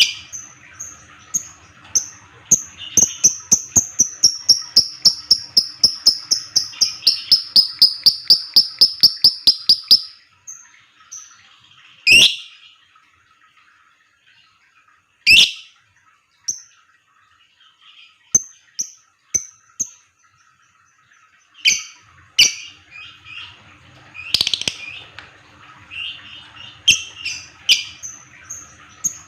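Lovebird calling. For the first ten seconds it gives a fast, even run of short high ticking chirps, about four to five a second, the 'ngetik' call. After that come scattered chirps and a few loud sharp shrieks, and the ticking chirps pick up again near the end.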